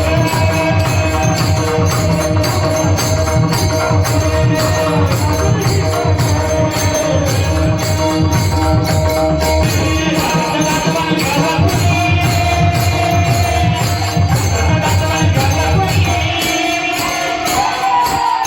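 Devotional singing: a lead voice holds long, wavering notes over steady jingling hand percussion and a drum. The drum drops out about a second and a half before the end.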